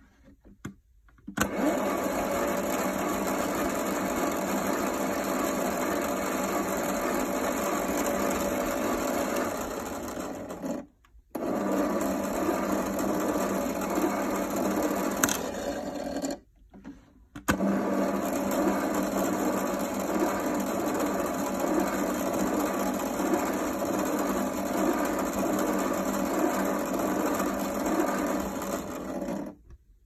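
Keenway My Home toy washing machine playing its washing-cycle sound effect through its small built-in speaker: a loud, steady churning noise. It breaks off twice for about a second, near the middle and again a few seconds later, then resumes.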